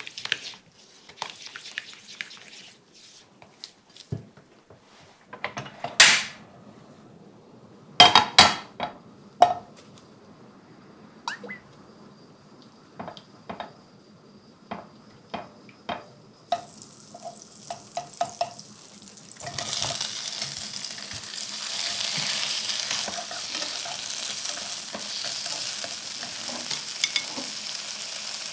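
A spatula scraping and stirring sauce in a glass bowl, then a few loud knocks of cookware. Butter and olive oil start to sizzle softly in a frying pan about halfway through, and a few seconds later the shrimp go in and the frying turns to a loud, steady sizzle.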